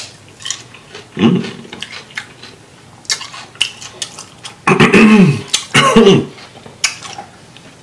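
Close-up chewing of a bite of crisp Persian cucumber: wet crunching and small mouth clicks, with a few drawn-out hummed vocal sounds that waver up and down in pitch, the loudest about five and six seconds in.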